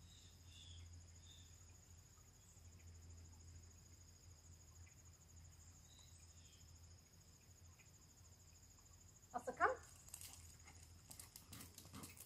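A steady, high-pitched insect drone in two even tones, faint over near-silent outdoor background. About nine and a half seconds in comes a brief, loud call of a few quick rising pitched notes, followed by scattered light ticks and scuffs near the end.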